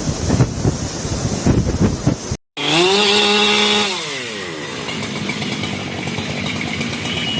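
Rough, gusty noise, then after a sudden cut a small engine running high and steady for about a second before its pitch falls away as it slows, leaving a steady noise.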